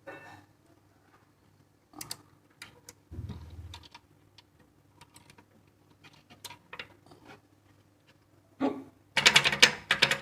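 Small parts of a motor starter's contactor clicking and knocking as they are fitted back together by hand: scattered clicks, a dull knock about three seconds in, and a quick, louder run of rattling clicks near the end.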